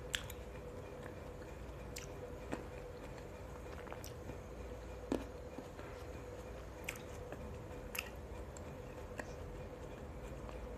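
Close-miked chewing of fresh fruit, with soft wet mouth clicks and smacks every second or so.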